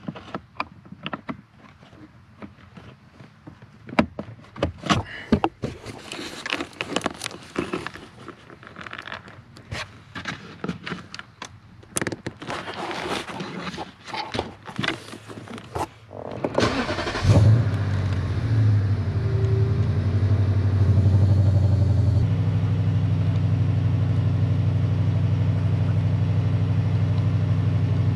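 Hands fitting plastic heater-damper parts under the dash: a run of clicks, snaps and knocks for about sixteen seconds. Then the 2008 Lexus IS F's 5.0-litre V8 is started and idles steadily, heard from inside the cabin.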